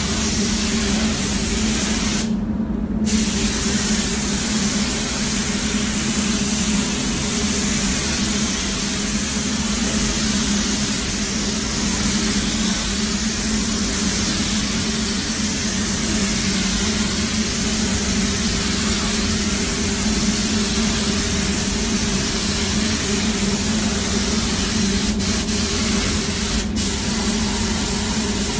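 Air-fed paint spray gun hissing steadily as pink paint is laid onto a VW Beetle's body, over a steady low hum. The spray cuts out for about a second a couple of seconds in, and breaks off twice very briefly near the end.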